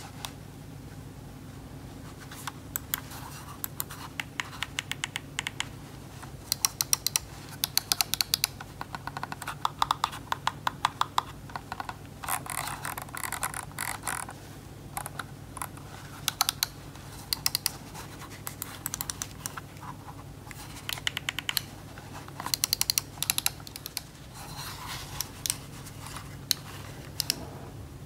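Razer Basilisk V3 gaming mouse's buttons and scroll wheel clicking in irregular clusters and quick runs of sharp clicks.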